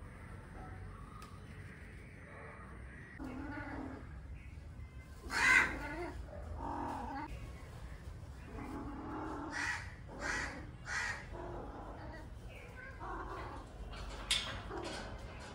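Domestic cats yowling in a string of drawn-out calls, the caterwauling of tomcats around a female cat in heat; the loudest call comes about five and a half seconds in.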